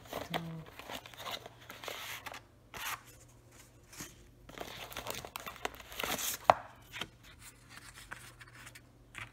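Sheets of thin calligraphy paper rustling and crinkling in irregular bursts as they are handled and shifted, with one sharp tap about two-thirds of the way through.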